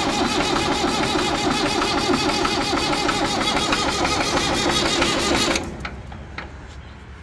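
Massey Ferguson tractor's diesel engine being turned over by the starter motor without firing, then the starter stops a little over five seconds in. The fuel is still turned off, so no diesel reaches the engine while the system is being bled.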